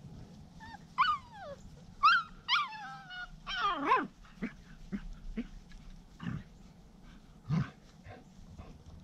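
Standard Schnauzer puppies yelping and whining at play: several high cries that fall sharply in pitch in the first four seconds, then a few short, lower sounds.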